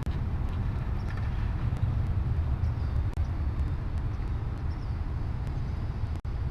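Wind buffeting the microphone outdoors: a steady, unsteadily pulsing low rumble.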